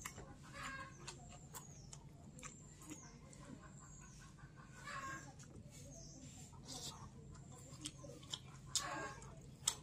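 Faint short animal calls, heard several times, over a steady low hum.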